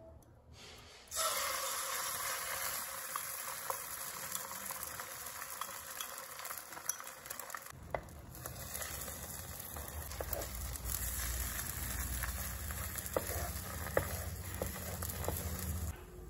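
Beaten egg with chopped green onion sizzling in hot oil in a nonstick wok, starting suddenly about a second in as the egg hits the oil. Later a wooden spatula scrapes and pushes the egg, with small clicks over the steady frying hiss, which falls away near the end.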